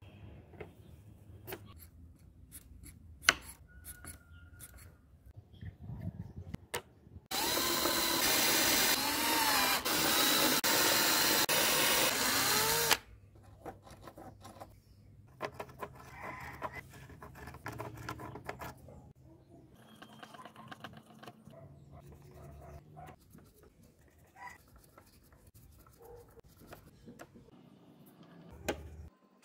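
An electric drill with a step bit boring into a uPVC pipe cap, running for about six seconds with its pitch wavering under load. Light clicks of plastic parts being handled come before and after.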